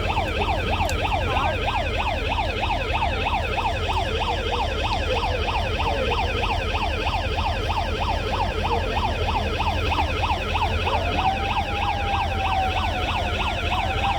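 Electronic siren warbling in fast, repeated rising sweeps, about three to four a second. A second, steady held tone joins it about eleven seconds in.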